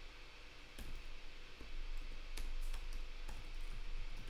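Computer keyboard typing: a handful of separate key clicks at an uneven pace.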